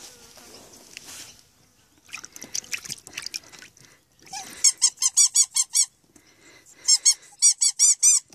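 Rubber squeaky dog toy squeezed rapidly in two quick runs of about eight high squeaks each, roughly a second apart, after a few scattered knocks and rustles.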